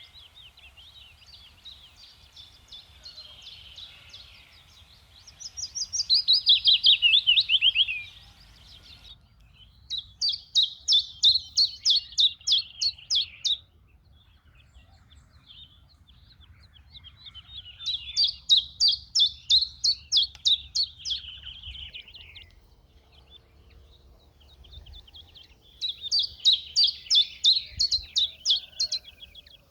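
Songbird singing in repeated phrases of quickly repeated high notes, four phrases a few seconds each, the first falling in pitch, with softer chirps between them.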